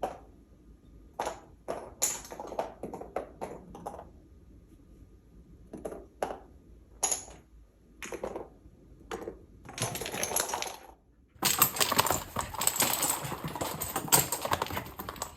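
Dominoes toppling and clicking against each other: scattered short runs of clicks, then, about two-thirds of the way through, a dense, continuous clatter as a long line of dominoes falls.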